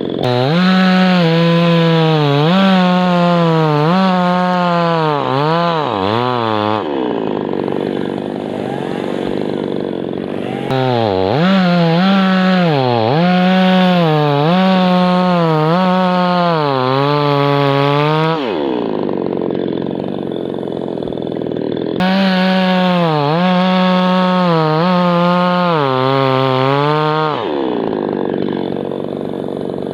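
Chainsaw cutting through a birch trunk three times, each cut held at full throttle with the engine pitch dipping and recovering under load. Between cuts it drops back to a lower, rougher run.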